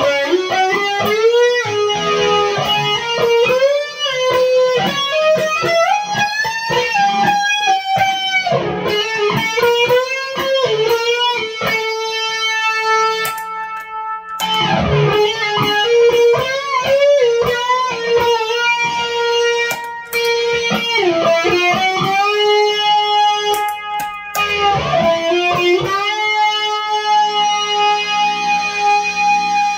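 Single-coil Fender Stratocaster played through a Fender Twin Reverb amplifier: a lead line with many string bends and long held, sustained notes.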